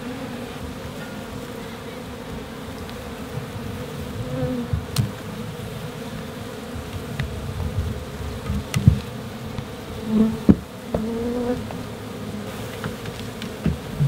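A colony of African honey bees buzzing steadily, disturbed and flying around off the comb. A few short sharp knocks and clicks sound over the hum.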